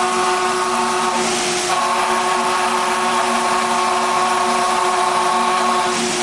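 Five-axis CNC router spindle running at a steady whine while its bit carves a wooden block, the cutting adding a rushing hiss of chips. About a second in the cutting briefly gets louder and harsher.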